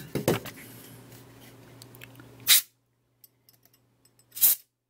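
Short blasts of canned compressed air through a straw nozzle, blowing dust off a radio circuit board: one hiss about halfway through and another near the end.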